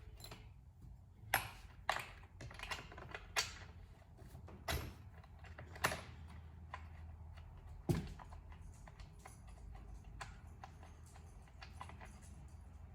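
Irregular clicks and light knocks of hand tools and small parts being handled during work on a chainsaw, with a few sharper knocks spaced a second or so apart in the first half.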